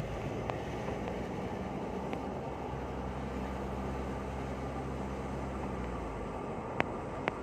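Car driving, heard from inside the cabin: steady tyre and road noise with a low engine hum. A few sharp clicks come through, two of them near the end.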